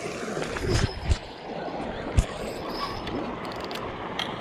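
Fishing reel being cranked with steady mechanical whirring, and three sharp knocks of the rod and reel being handled, two of them close together near the start.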